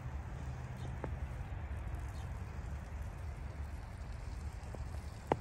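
Steady low outdoor rumble with a few faint clicks from the wood-fired grill as it is tended, and one sharp click near the end.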